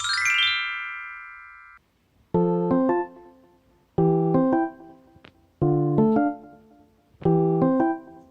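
Background music: a quick rising run of high notes, then a light keyboard tune played in short repeated phrases about every second and a half.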